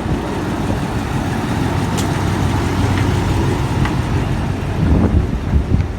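Diesel engine of a heritage train running with a steady low rumble, with a few light clicks over it.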